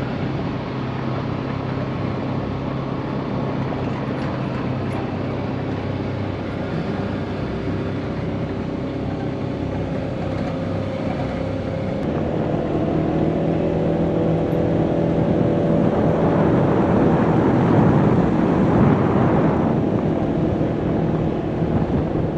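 A vehicle engine running steadily, changing pitch and getting louder about halfway through.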